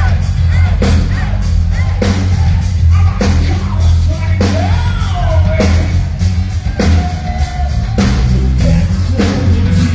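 Live hard rock band playing: a male vocalist singing over distorted electric guitars, bass and drums, with a heavy drum beat striking about once a second.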